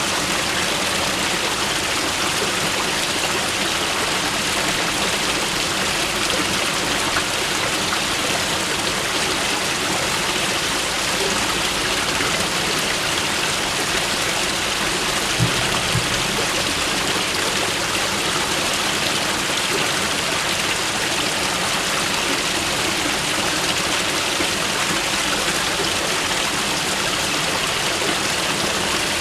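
Mountain river rushing steadily over rocks, an even, unbroken water noise.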